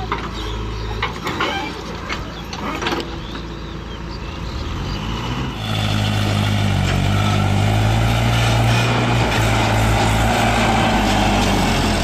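Diesel engines running while a backhoe loader tips soil into a tractor trolley, with several sharp knocks in the first half. About halfway through, a louder, steady engine takes over: a Mahindra tractor's diesel engine pulling away under load with a trolley full of soil.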